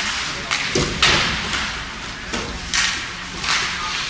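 Hockey skates scraping across the ice in repeated short strokes, with a thud about a second in.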